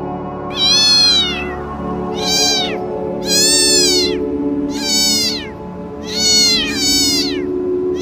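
An animal calling six times in short, high-pitched calls, each rising then falling in pitch, over steady ambient music with long held tones.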